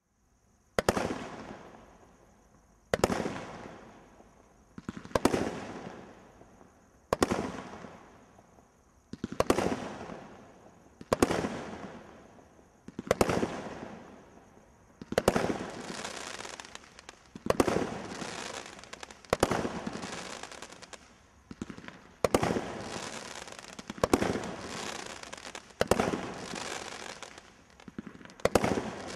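Brothers Pyrotechnics Fanfare, a 42-shot display combination Roman candle, firing one shot about every two seconds. Each shot is a sharp report followed by a fading crackle. From about halfway the crackling is denser and carries on between shots.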